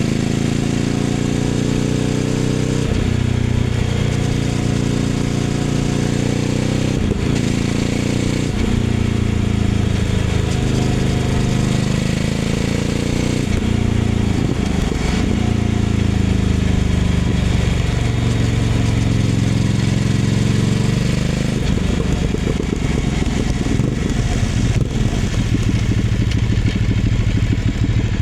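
Ducati Scrambler 800's air-cooled L-twin through a Leovince LV-10 exhaust, ridden on the road. The revs rise and fall again and again, with several sharp breaks that sound like gear changes. Over the last several seconds it settles to a low, steady beat.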